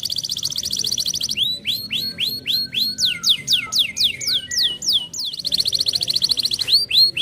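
Domestic canary singing: a fast rolling trill, then a run of separate notes sweeping down in pitch, several a second, then another fast trill about five seconds in.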